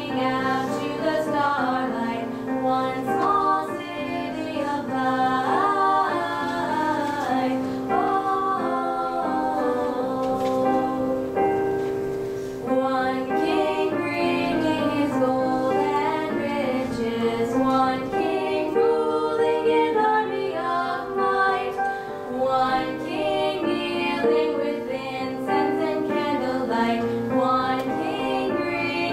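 Two girls singing a duet together, with steady held notes of instrumental accompaniment under their voices.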